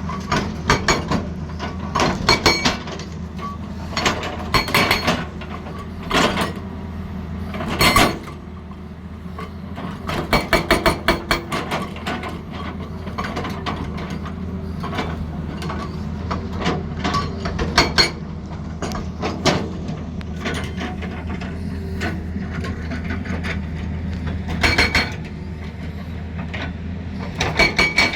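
Excavator engine running steadily, with scattered sharp metallic knocks and clanks and a burst of rapid strikes about ten seconds in.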